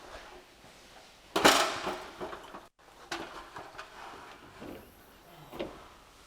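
A steel Snap-on EPIQ tool cabinet being worked open. There is a loud clatter about a second and a half in that dies away over a second, then lighter handling knocks and a smaller clunk near the end.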